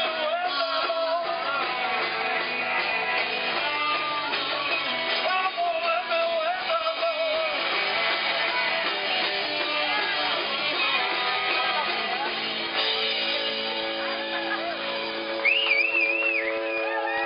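Live rock band playing amplified music, guitar with singing, finishing on a long held chord over the last few seconds. A high wavering sound rises over the chord near the end.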